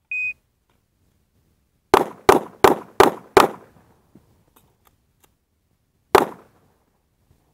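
A shot timer's short high start beep, then a handgun fired five times in quick succession about two seconds later, roughly three shots a second, and one more shot about three seconds after that.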